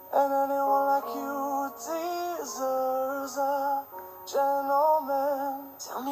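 Pop song with sung vocals holding long, slightly wavering notes over a backing track, with a few sharp percussion hits.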